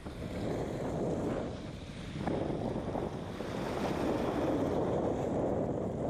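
Wind buffeting the microphone in gusts, over choppy lake water lapping and splashing against a rocky shore.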